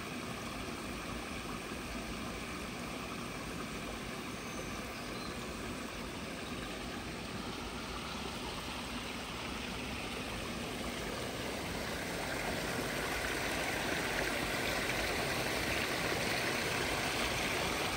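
Small forest stream splashing over branches and debris in a low cascade: a steady rush of water that grows louder about two-thirds of the way through.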